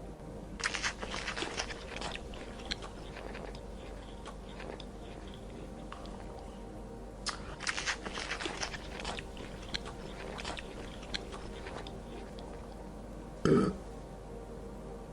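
Crunchy chewing: two bouts of rapid crisp crunches, a few single crunches between them, and one short louder sound near the end.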